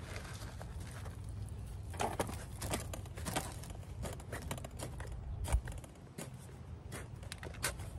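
Garden soil being tipped from a black plastic pot and scooped with a small hand trowel: scattered scrapes and rustles of soil and plastic, with a thump about five and a half seconds in.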